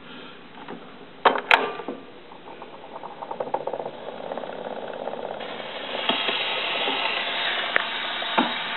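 Gramophone needle on a spinning 78 rpm shellac record: two sharp knocks about a second and a half in, then the crackle and hiss of the record's surface noise in the lead-in groove, growing louder.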